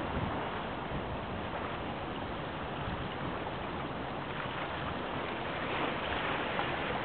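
Steady outdoor wind and water noise, with no distinct events.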